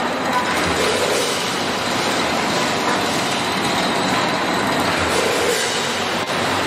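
Sleeve labelling machine running with hot air guns blowing to shrink plastic sleeves onto jar necks: a steady, even rushing noise of fans and machinery.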